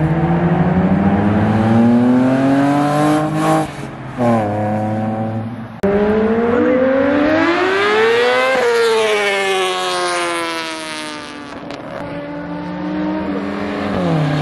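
Vehicles accelerating hard past through the gears. In the first half an engine climbs in pitch with two quick upshifts. About eight and a half seconds in, a sport motorcycle revs high and passes with a falling pitch, and near the end a car accelerates through another shift.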